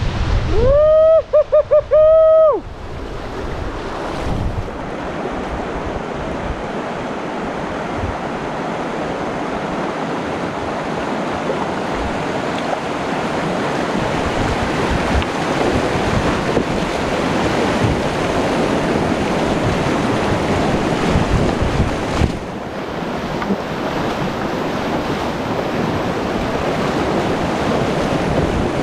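Whitewater rushing in a river rapid: a steady, loud wash of water noise with wind buffeting the microphone. About a second in there is a brief, loud, high-pitched call held at one pitch and broken into a few quick pulses.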